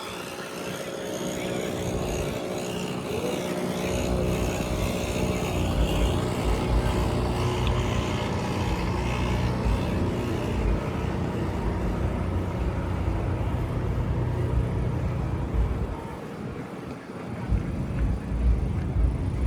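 Motor vehicle running steadily, a low engine and road rumble that comes up about four seconds in and briefly drops away near the end before returning.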